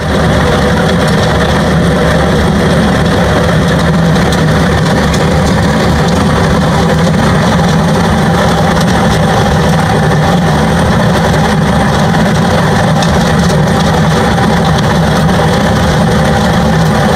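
Engine of the construction machine driving a WE600 asphalt wheel excavator, running loud and steady with no change in speed.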